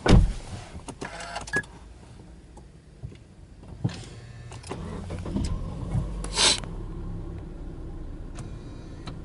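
A car door shuts with a thump. A few seconds later the Subaru Legacy Touring Wagon 2.5i's 2.5-litre boxer four is cranked and starts, then settles into a steady idle.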